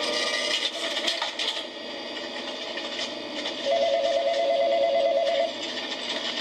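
Looped office-and-warehouse ambience played through a small speaker driven by a WTV020-SD-16P audio player module: busy workplace background sounds, with an electronic telephone trilling for about two seconds in the second half.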